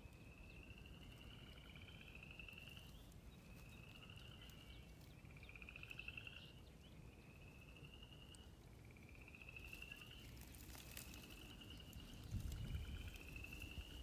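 Frogs calling faintly in a chorus: repeated rising trills, each about a second long, several callers overlapping. A low rumble swells briefly near the end.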